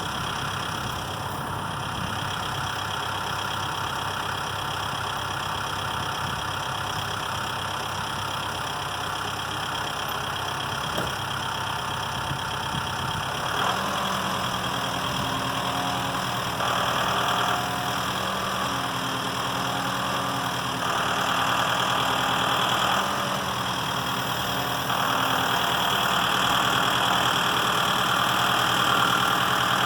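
Tractor engine running steadily, then from about halfway through its note changes and it grows louder in several steps as it works to lift and set a heavy telephone pole.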